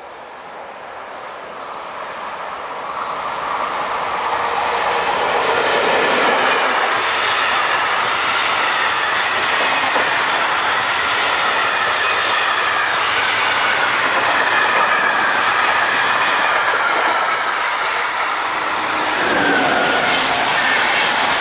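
Class 203 diesel locomotive with a train of empty switch-transport wagons approaching and growing louder over the first six seconds, then rolling past with clatter of wheels over the rails and some wheel squeal on the curve. About nineteen seconds in, a different train, an electric-hauled FlixTrain, passes close.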